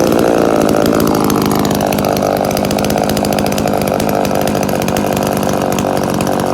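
Echo CS-3400 two-stroke chainsaw engine running steadily, its note shifting about a second in.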